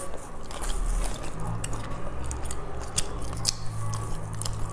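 Close-miked eating sounds: wet chewing with a few sharp, sticky clicks of lips and mouth on a soft green glutinous rice cake. A low steady hum comes in about a second and a half in.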